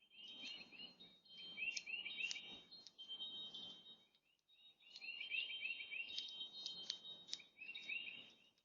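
Small songbirds at a feeder chirping in quick series of short notes, in two bouts with a brief lull about halfway through.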